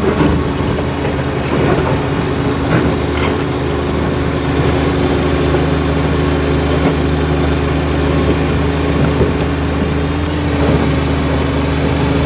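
Komatsu D85 bulldozer's diesel engine running steadily at a constant speed.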